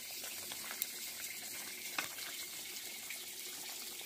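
Chicken stew simmering in a metal pan over a wood fire: a steady bubbling hiss, with a couple of light clicks about one and two seconds in.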